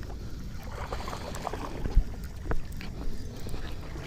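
Handling noise on a chest-mounted microphone: a low rumble with scattered small clicks and knocks, and a sharper thump about two seconds in.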